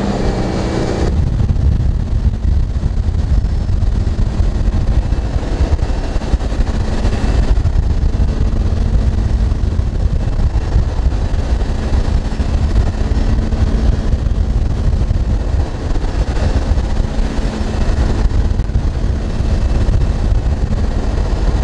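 MasterCraft ski boat's engine running steadily at towing speed, with heavy wind buffeting on the microphone and water rushing past the hull.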